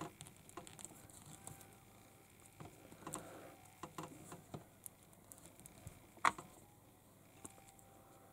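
Small plastic toy-figure parts being handled and pressed together: scattered light clicks and taps, the sharpest about six seconds in.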